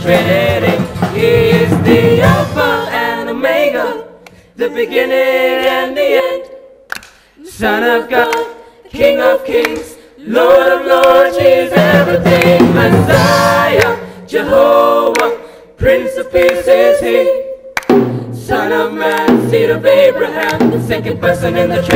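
A small mixed group of singers singing a song together in harmony, with acoustic guitar accompaniment. For a stretch in the middle the accompaniment drops away and the voices sing on their own, with brief breaks between phrases.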